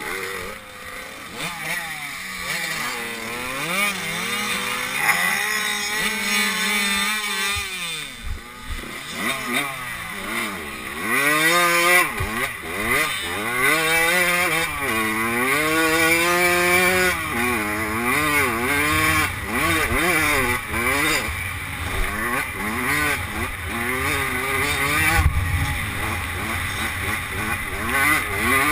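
85cc two-stroke motocross bike engine revving up and down again and again, the pitch climbing and falling with each throttle change. Wind rushes over the microphone throughout.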